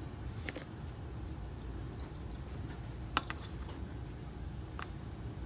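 Spring-loaded center punch snapping as it marks drill spots on the plastic console latch: a few sharp clicks, the loudest about three seconds in, over a steady low hum.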